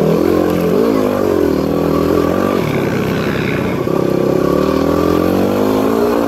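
Yamaha WR250R's single-cylinder four-stroke engine running under way, its pitch rising and dropping several times as the throttle is opened and closed.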